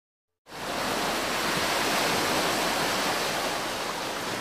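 Sea surf washing over shore rocks: a steady rush of waves that starts suddenly about half a second in.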